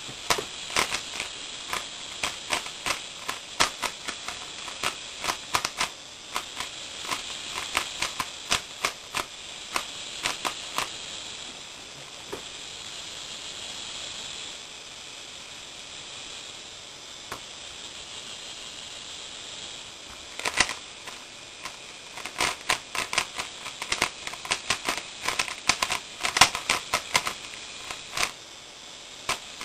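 A 3x3x3 Rubik's Cube being turned by hand, its plastic layers making quick runs of clicks for about eleven seconds as it is scrambled. Then come only scattered clicks, and from about twenty seconds in it turns fast and continuously as the speedsolve begins, over a steady hiss.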